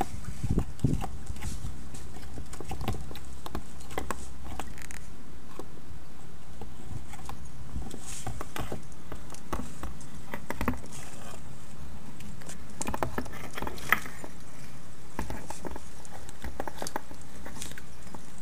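Yellow-bellied sliders' claws and shells clicking and scraping on the tiles and plastic of a dry tank: irregular light clicks and taps over a steady low hum.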